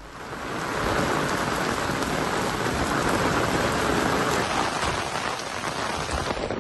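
Heavy rain pouring onto a paved road, a steady hiss of rain on the wet surface that fades a little near the end.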